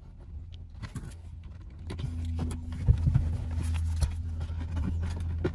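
Clicks and knocks of a cable being pushed into plastic interior trim of a car, over a steady low hum that gets louder about two seconds in.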